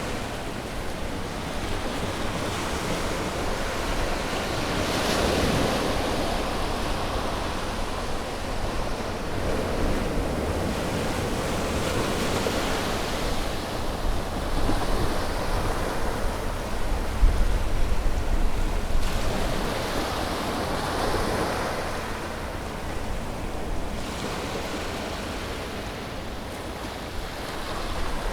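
Ocean waves breaking and washing on a shore, swelling and ebbing every few seconds, with a low rumble of wind on the microphone.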